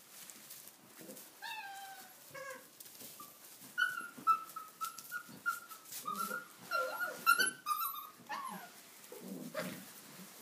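Six-week-old Tibetan mastiff puppies yelping and whining as they play-fight, a run of short high-pitched yelps in the middle.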